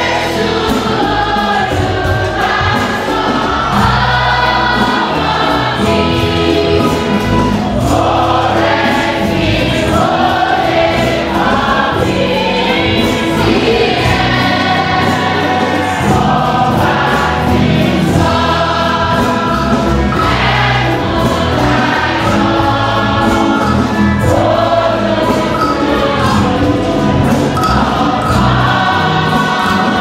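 A church choir and congregation singing a gospel hymn together, many voices in unison without a break.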